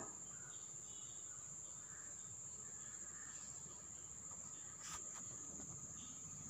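Quiet background with a steady high-pitched whine throughout, and one soft knock about five seconds in as dough is handled on the steel plates.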